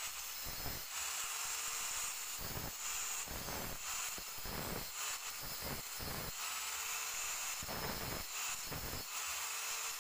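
Electric angle grinder with an abrasive disc grinding a steel exhaust tube: a steady high-pitched whine and hiss, surging about once a second as the disc is pressed against the metal.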